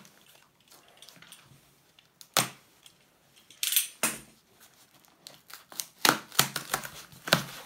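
Cardboard mailer box being opened by hand: tape tearing and the cardboard flaps scraping and knocking, a few sharp sounds spread out, then a quicker run of them near the end.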